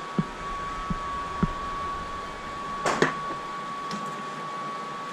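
Steady hum of ventilation with a thin steady tone, broken by a few soft knocks in the first second and a half and a sharper clack about three seconds in as gear is handled on a shooting bench.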